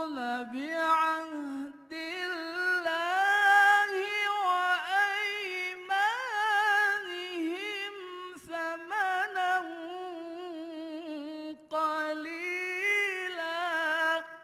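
A male qari reciting the Quran in melodic tarannum style at a microphone: long, high, ornamented sung phrases with a gliding, wavering pitch, broken by three short pauses for breath.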